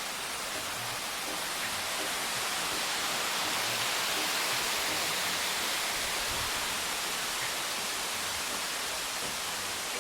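Small river waterfall rushing steadily, an even hiss of falling water that swells slightly around the middle.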